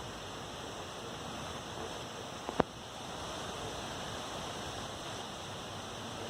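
Steady rushing water, with one sharp click about two and a half seconds in.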